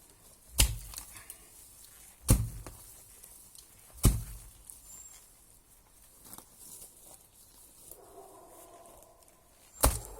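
Four heavy, sharp thuds of a digging tool striking the ground, the first three a couple of seconds apart and the last after a longer pause near the end.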